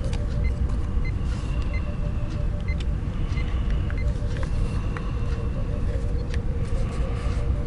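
Steady low background rumble with a constant hum, and a few faint light clicks and taps over it.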